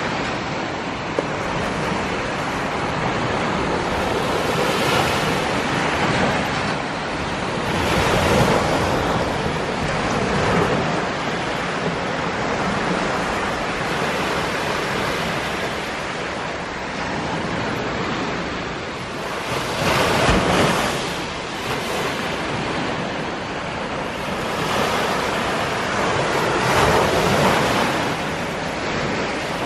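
Small surf waves breaking and washing up a sand beach, a steady rush that surges louder every few seconds as each wave comes in.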